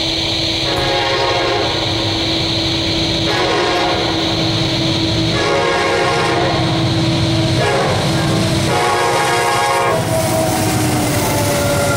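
Diesel freight locomotive's air horn blowing several blasts for a grade crossing as the train approaches. About ten seconds in, the lead locomotive passes close by and the horn gives way to the rumble and clatter of the train rolling past.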